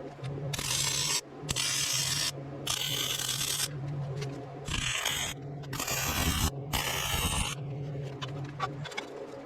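Welding arc crackling in six short bursts of about a second each, a run of tack or stitch welds on steel angle iron, over a steady low electrical hum.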